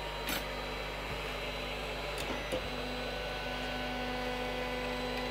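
Creality CR-10S 3D printer auto-homing: its stepper motors whine in steady tones as the axes travel, with a few short clicks, over a steady hum.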